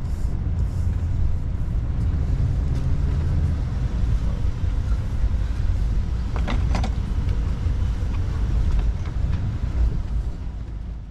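Car driving along: a steady low rumble of engine and road noise, with two short sharp clicks about six and a half seconds in.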